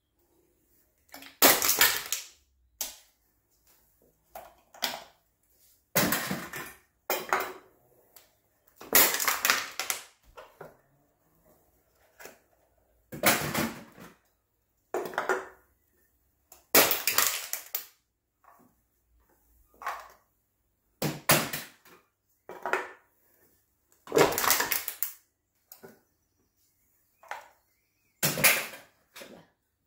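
Aluminium drink cans being crushed one after another in a homemade wooden lever can crusher: a crunch of collapsing metal about every three to four seconds, eight in all, with smaller knocks between them.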